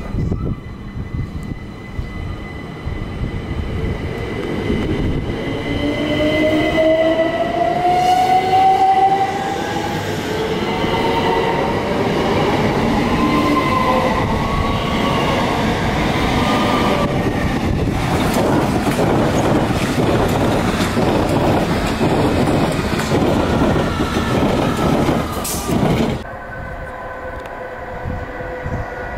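Electrostar electric multiple unit accelerating, its traction motors giving a whine that climbs steadily in pitch. This gives way to loud wheel-on-rail running noise with a rapid clatter as the train runs by, which drops off abruptly near the end.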